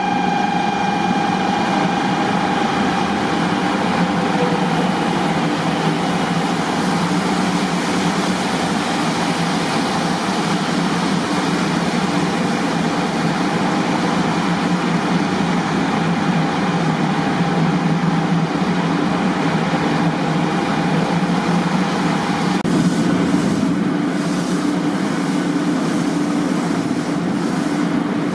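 JR West 500 series Shinkansen (500 TYPE EVA) running past on the tracks: a loud, steady rumble and rush of the train with a steady whine over it. The whine stops and the sound shifts about three-quarters of the way through.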